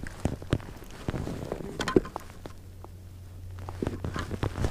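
Irregular clicks and knocks from a spinning rod and reel being handled, with one sharper knock about two seconds in, over a low steady hum.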